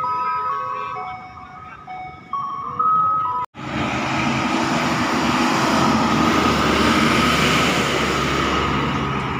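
A short tune of held notes stepping up and down, cut off abruptly about three and a half seconds in. Then a Trans Jatim city bus approaches and passes close by, its engine and road noise swelling to a peak and easing off near the end.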